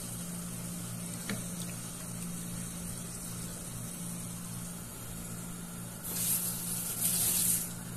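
Curry gravy cooking in a pan over a gas flame on full while pieces of pomfret are slipped into it by hand, with a steady low hum underneath. A louder hiss lasts under two seconds near the end.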